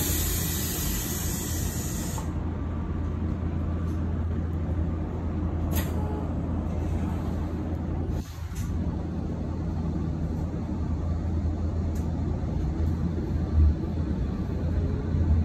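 Inside a Tobu Skytree Line commuter train as it runs along the line: a steady low rumble of motors and wheels on the rails. A hiss in the first two seconds stands out above it.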